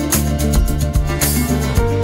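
Upbeat background music with plucked guitar over a steady bass and beat.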